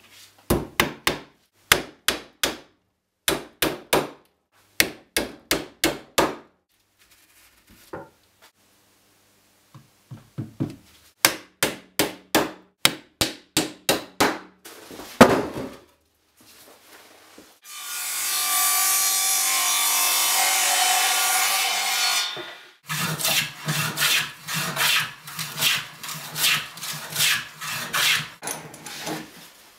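Hammer driving nails into reclaimed barn-board crate sides: groups of four to six sharp blows with short pauses through the first half. Midway comes a steady rushing noise lasting about five seconds. Near the end a hand plane takes quick strokes along a board edge held in a vise, about two strokes a second.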